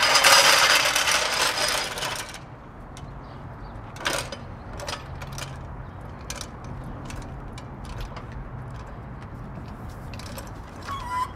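Steel floor jacks on asphalt: a loud metallic rattle and ratcheting for about two seconds, then scattered lighter clicks and knocks as a jack is set under the car and its handle worked.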